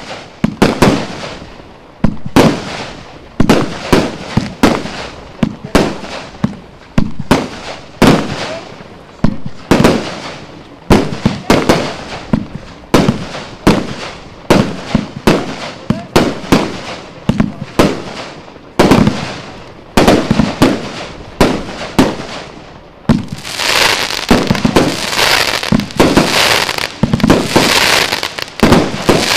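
Rubro Event Horizon Z-3 fireworks cake (a 104-shot compound box) firing shot after shot, each a sharp bang, about one a second. From about 23 seconds in, a dense crackle fills the gaps between the shots.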